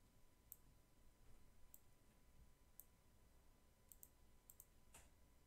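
Faint computer mouse clicks, about seven scattered through, over near-silent room tone.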